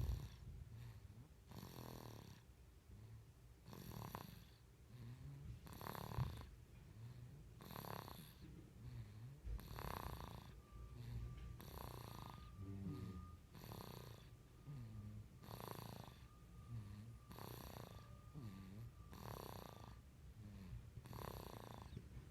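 Quiet, steady snoring, one noisy breath about every two seconds.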